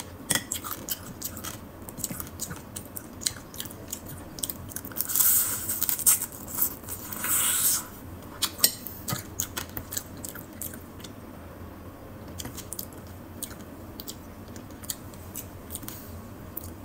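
Eating cooked crab in spicy garlic butter sauce: shell cracking and snapping in sharp clicks, with biting and chewing throughout. There are two longer hissy stretches about five and seven seconds in.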